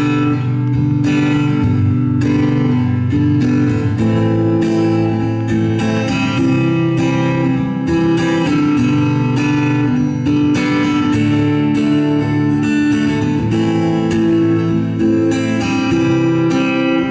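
Acoustic guitar strummed steadily in an instrumental passage of a song, with no singing.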